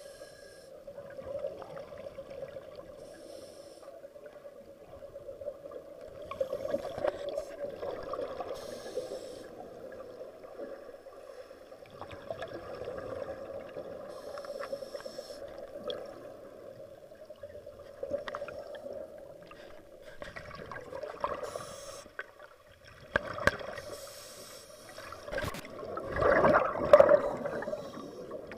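Underwater sound of a diver's breathing: bubbles from the breathing gear gurgle out every few seconds over a steady hum, swelling loudest near the end.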